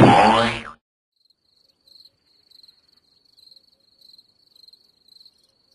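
A short loud sound at the very start, then a cricket chirping: a thin high trill with a chirp roughly every half second to second, the stock cartoon crickets effect.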